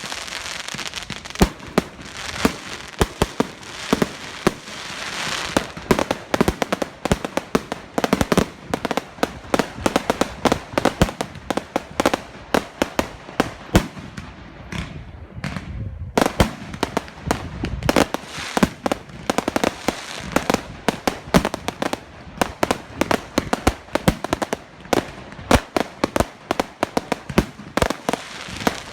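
Fireworks going off in rapid succession: many sharp bangs and crackles, thinning briefly about halfway through before picking up again.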